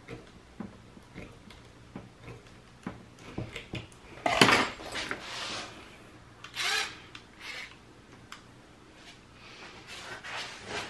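A small metal hand tool clicking and scraping against a broken screw lodged in a circuit breaker's screw terminal while trying to work it out. Scattered light clicks, with a few louder scrapes, the loudest about four seconds in.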